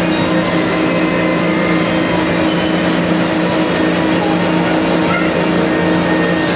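A motor running steadily: an even hum with a hiss over it.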